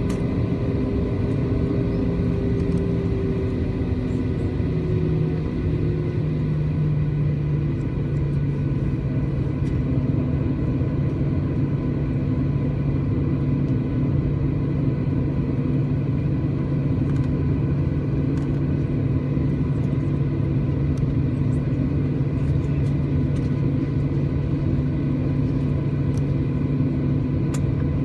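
Boeing 737-800 cabin noise during taxi, heard from a window seat over the wing: the steady rumble of the CFM56-7B engines at taxi power, with steady hums over it. One hum drifts slightly lower in the first few seconds, and a deeper hum grows stronger about five seconds in.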